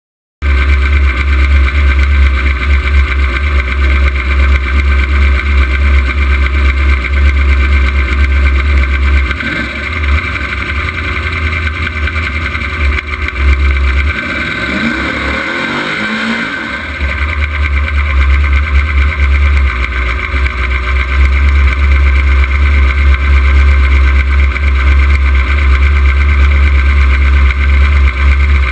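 Camaro drag car's engine idling with a loud, deep rumble, heard from inside the cockpit. About halfway through, the note briefly shifts and the low rumble drops for a few seconds before settling back.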